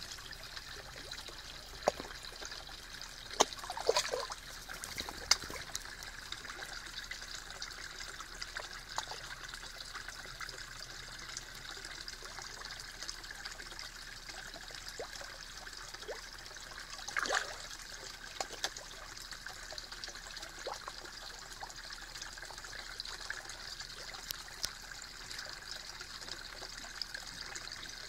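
Steady trickle of water in a garden pond, with a few sharp splashes and pops as koi and carp take floating food at the surface, the biggest about three to five seconds in and again a little past halfway.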